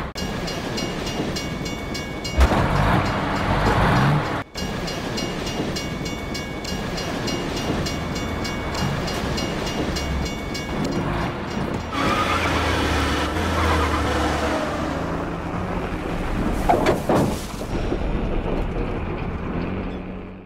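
Film sound mix of a car and a tanker truck's engines running, with music underneath; the sound cuts off abruptly at the end.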